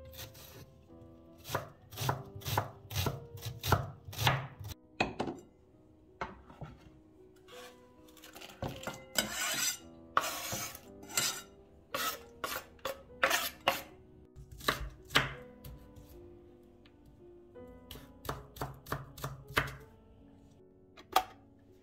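Kitchen knife chopping onion on a wooden cutting board: runs of sharp knocks as the blade hits the board. About nine to eleven seconds in, a longer scraping as the diced onion is pushed off the board into a bowl.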